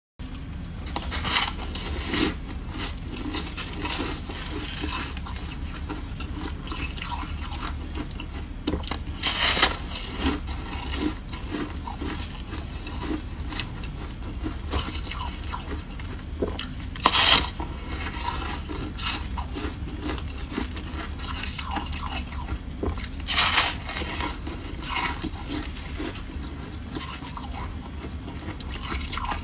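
Bites into a slab of dyed foamy freezer frost: about five loud crunches, with quieter crackling and chewing in between, over a steady low hum.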